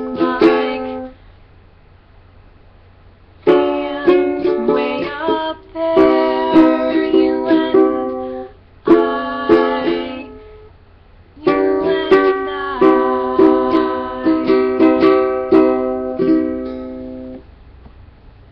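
Ukulele strummed by a beginner: short runs of strummed chords broken by pauses of a second or two, the last run the longest.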